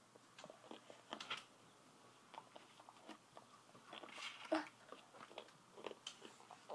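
A toddler chewing animal crackers: faint crunching and small mouth clicks. About four seconds in there is a short rustle as a paper napkin is wiped across his face.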